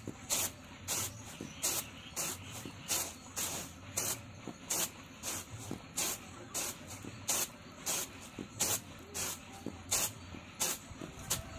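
Hand-pounded rice swishing across a woven bamboo winnowing tray as it is shaken, a rhythmic hiss about twice a second, sifting out husk and bran.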